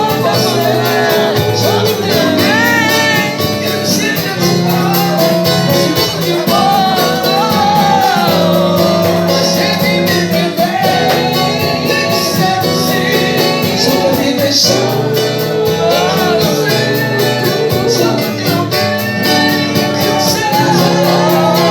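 A live band playing a song, with a steady, fast percussion beat under melodic lines and singing.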